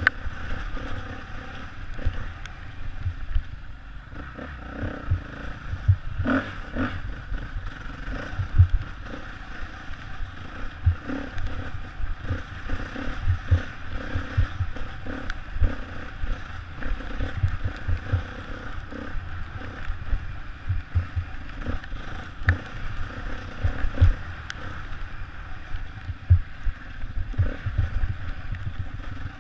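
Enduro motorcycle ridden fast along a rough forest singletrack, heard from a helmet-mounted camera: the engine runs under steady wind noise, with frequent low thumps and clatter from the bumpy trail.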